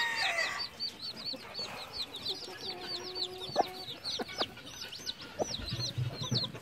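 A brood of chicks a few days old peeping continuously: a fast run of high, arching peeps, about four a second. The mother hen gives short low clucks now and then.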